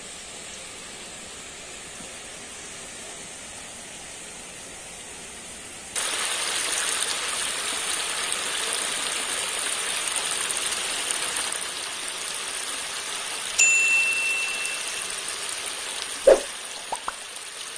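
Water spilling over a low concrete weir edge into a pond, an even splashing rush that starts suddenly about six seconds in, after a quieter steady hiss. A single short ding comes about two-thirds of the way through, and a few quick clicks come near the end.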